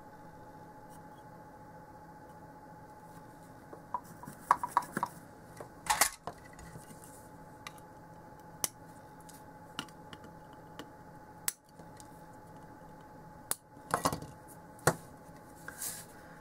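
Flush side cutters snipping off excess component leads on a circuit board: a series of short, sharp metallic clicks, several close together about four to six seconds in, then single snips spaced a second or more apart.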